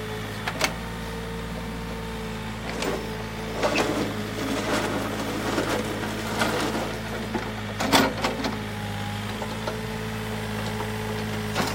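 Three-cylinder diesel engine of a Kobelco SK013 mini excavator running at a steady speed. Several sharp metallic knocks and a few seconds of clattering come from the machine working, about a third of the way in and again near eight seconds.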